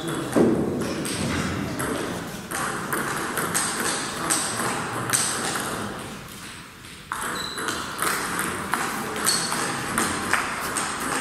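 Table tennis ball clicking off the bats and the table in rallies, a sharp tick about every half second, over steady background noise of the hall. The ticks stop for a short lull about six seconds in, then start again.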